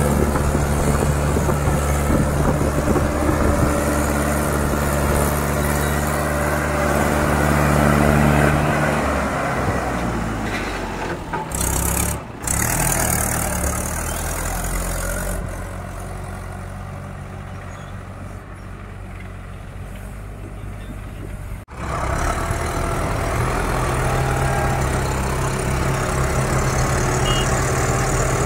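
Diesel tractor engines running hard under heavy pulling load: a Mahindra 575 DI XP Plus and a New Holland 3630 straining to drag a loaded sand trolley. The sound cuts abruptly between shots, and is quieter for a few seconds in the middle.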